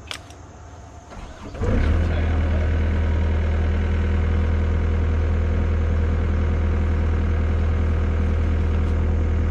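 Excavator's diesel engine starting about a second and a half in, then running steadily at a low, even pitch.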